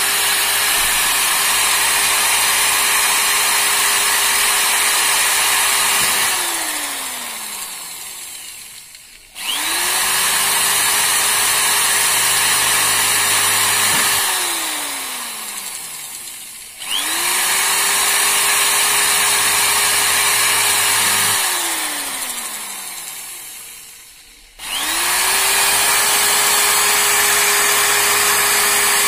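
Corded electric hand drill drilling holes through a plastic switchboard sheet, run in bursts of about five seconds. Each time the trigger is released the motor spins down with a falling whine over two to three seconds, then starts up again; this happens three times.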